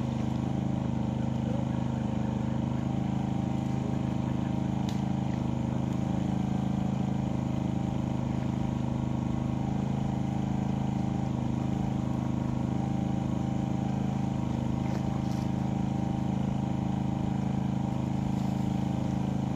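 Small engine driving a water pump, running steadily at an even speed while a pond is pumped dry.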